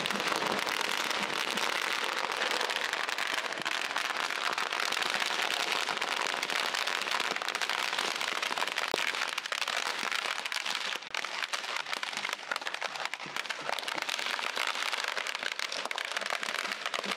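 Firecrackers packed inside a burning effigy going off in a dense, continuous crackle of rapid small pops. The crackle eases slightly after about eleven seconds.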